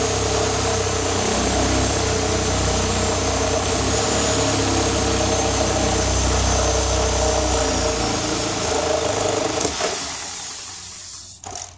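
Reciprocating saw (Sawzall) cutting through the bottom of a rotten wooden deck post. It runs steadily for about ten seconds, then winds down and stops near the end.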